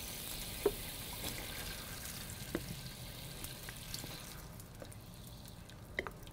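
Mirin simmering with a steady hiss in a frying pan as soy sauce is poured in from a measuring spoon; the hiss dies down about four seconds in. A few soft clicks are scattered through.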